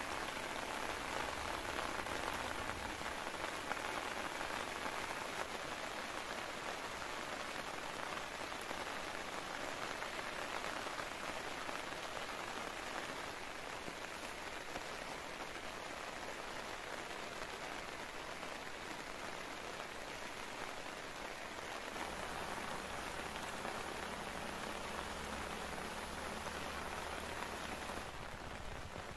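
Steady rain falling on a tent's flysheet, an even hiss of many drops with no let-up.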